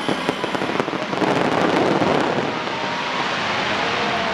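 Fireworks crackling: a dense, steady spray of many small pops and cracks, with no single big bang.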